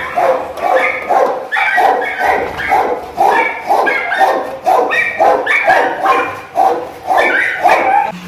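A dog barking steadily, quick even barks about three a second.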